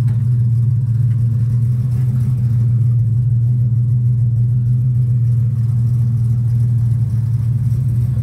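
A steady low engine hum, even in pitch and loudness throughout.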